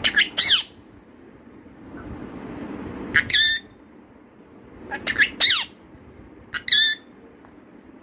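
A pet rose-ringed parakeet gives short, high calls, about six in all, coming singly or in pairs a second or two apart.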